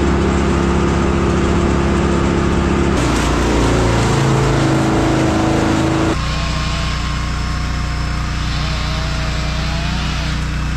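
A large engine running steadily, its tone shifting about three seconds in and again about six seconds in.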